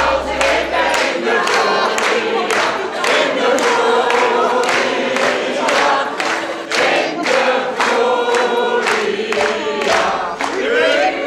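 A roomful of people singing together while clapping along in time, about two claps a second. Cheers and whoops break out near the end.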